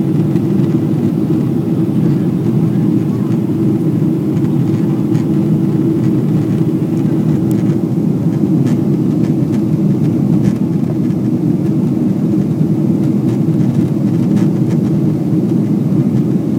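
Steady cabin noise inside a Boeing 777-300ER in flight: a constant low rumble of engines and airflow, with a few faint ticks.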